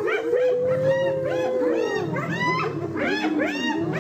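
A chorus of many animals calling at once: overlapping cries that rise and fall in pitch, with one long held cry that sags slowly through the first half.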